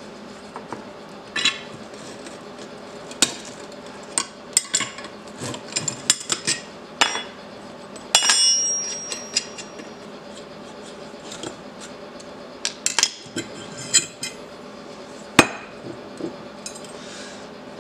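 Metal hand tools, nuts and clamp pieces clinking and knocking against a steel fixture plate and bench as the fixture is taken apart and the brazed cast-iron lathe handle is lifted off. The knocks come irregularly, and one clank about eight seconds in rings briefly.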